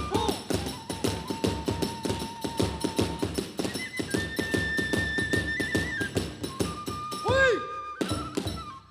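Hiroshima kagura ensemble playing: a bamboo flute holds long notes that step between pitches over a fast, even beat of drum and hand-cymbal strikes. A loud swooping note rises and falls about seven seconds in, and the music drops away just at the end.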